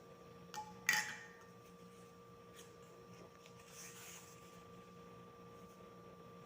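Faint craft handling: a small click, then a sharper click about a second in, and a soft scrape or rustle around four seconds in. A steady electrical hum with a high whine runs underneath.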